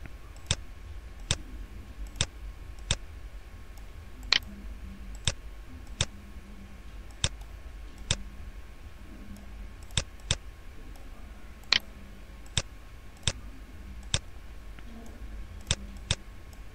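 Computer mouse buttons clicking: single sharp clicks at irregular intervals, about one a second, over a faint steady hum.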